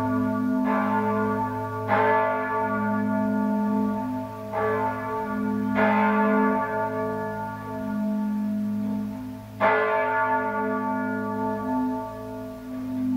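Full peal of five swinging church bells of St. Ottilien Archabbey, tuned a°, c♯', e', f♯', a', their clappers striking one after another every second or two. Each strike rings on over the continuous deep hum of the larger bells.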